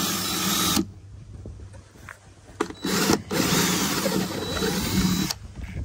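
Craftsman cordless drill running a small bit through the plastic wall of an Igloo cooler, in two runs: a short one that stops under a second in, then a longer one from about two and a half seconds in until just past five seconds.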